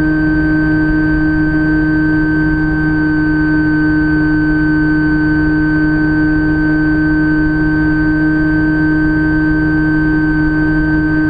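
Electric motor and propeller of a Phantom FX-61 flying wing running at a steady throttle, an even drone with a constant whine, over the rush of air on the onboard microphone.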